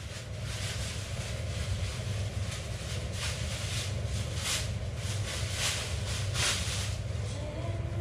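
Several short hissing bursts from someone working at a stainless steel kitchen sink, between about two and seven seconds in, over a steady low hum.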